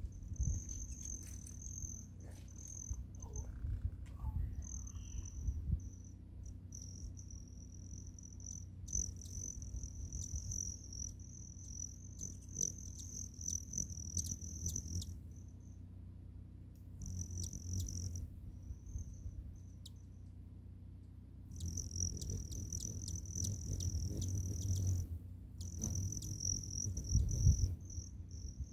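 Hummingbird wings making a high, metallic buzzing trill, which comes and goes in stretches of a few seconds with short gaps, over a steady low rumble. It is the wing trill typical of male broad-tailed hummingbirds.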